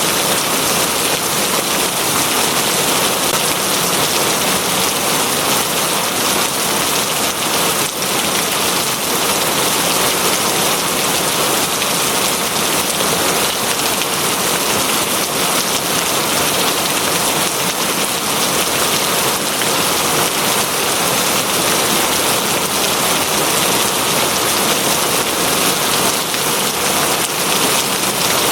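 Steady, heavy rain falling on a surface, an even hiss with no thunder or other events.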